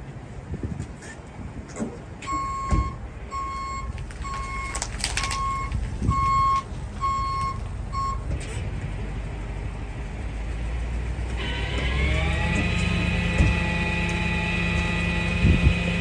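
Tow truck reversing with its backup alarm beeping about once every 0.8 s, seven beeps in all, with a few clanks as the wheel-lift arm comes in under the wrecked truck's bumper. A few seconds after the beeping stops, the tow truck's engine speeds up and holds a steady higher note.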